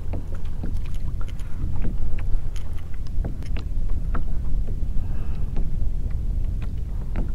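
Wind buffeting the microphone in a steady low rumble, with light water lapping at the kayak's hull in short irregular ticks.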